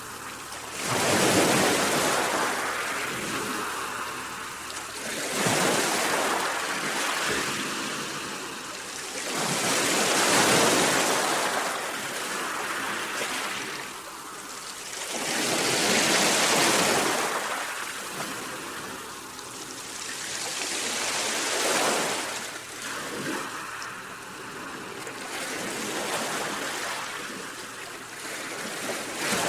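Sea waves breaking, the surf rising and falling in a swell about every five seconds.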